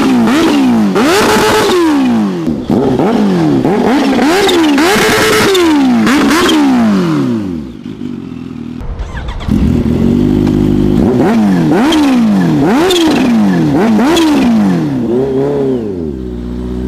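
Kawasaki Ninja H2R's supercharged inline-four engine revving hard, its pitch climbing and dropping over and over, with a brief lull and a steady note about halfway through and a steadier note near the end.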